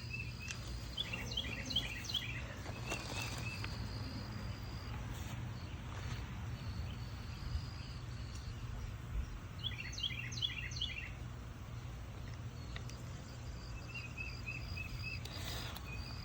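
Outdoor ambience: a bird gives two short bursts of quick chirps, about a second in and again about ten seconds in, over a faint high insect trill and a steady low hum.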